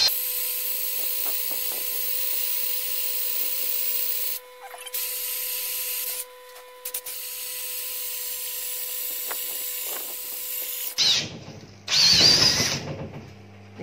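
Small handheld electric drill with a long wood auger bit boring into a thick timber block, running with a steady whine and chip hiss. It cuts out briefly twice, stops about eleven seconds in, then gives a short, louder run near the end.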